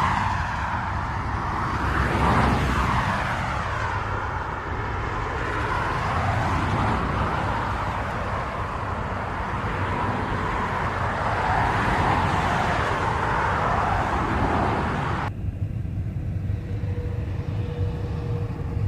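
Steady noise of highway traffic, with vehicles swelling past about two and a half seconds in. About three-quarters of the way through, the sound cuts abruptly to a duller, lower rumble, with a faint steady hum near the end.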